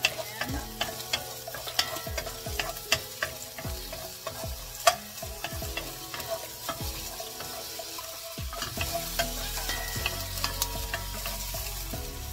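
Wooden spatula stirring sliced onions in a stainless-steel honeycomb pan, tapping and scraping against the metal, over the sizzle of the onions sautéing in oil. The sharpest tap comes about five seconds in, and the taps thin out over the last few seconds.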